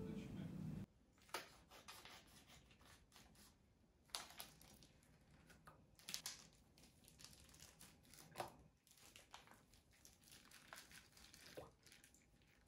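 Faint, irregular crinkling and tearing of thin plastic: a clear plastic pack of raw beef shank being opened and handled with a disposable plastic glove.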